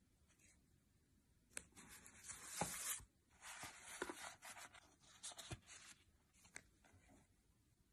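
Paper sliding and rustling as a card and a paper band are slipped into a stiff black paper envelope and tucked in. There are two scraping stretches of a second or two each, with a few light knocks, then fainter strokes near the end.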